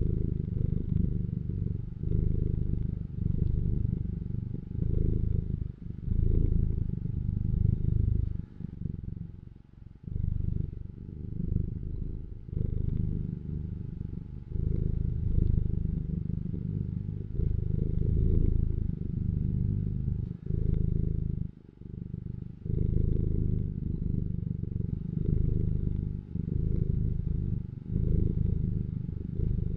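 Domestic cat purring close to the microphone: a low rumble that swells and fades in cycles a second or two long, with brief dips between them.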